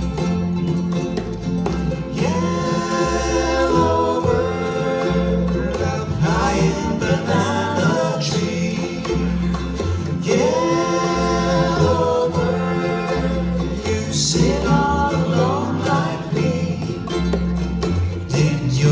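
Ukulele ensemble strumming with a steady pulsing bass line, joined about two seconds in by voices singing the melody in phrases of about two seconds each.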